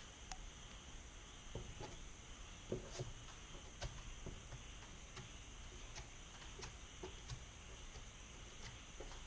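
Faint, irregular clicks and light scrapes of a plastic spreader working freshly mixed body filler from a mixing board onto a van roof repair, about one or two a second, the loudest tap about three seconds in.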